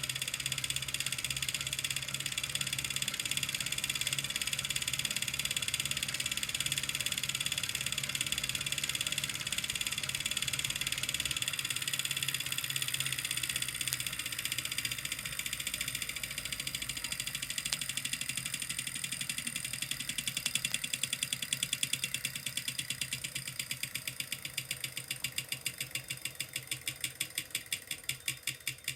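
Wahoo Kickr Core smart trainer spinning with a steady whir and fast, even clicking. About two-thirds of the way through the running sound fades and the clicks stand out, coming slower and slower as the flywheel coasts down. This clicking is the noise the owner is trying to track down.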